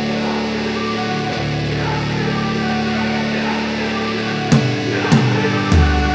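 Instrumental background music: held chords, then a beat of heavy hits comes in about four and a half seconds in, roughly one and a half hits a second.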